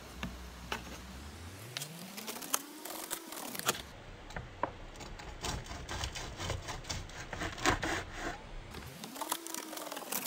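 Cleaver chopping through crispy deep-fried pork belly (bagnet) on a wooden cutting board: an irregular series of crunches and knocks of the blade on the wood, thickest in the middle of the stretch.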